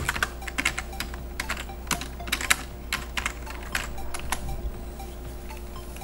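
Typing on a computer keyboard: quick, irregular runs of key clicks as a search term is entered, thinning out and stopping after about four and a half seconds. A low, steady hum lies underneath.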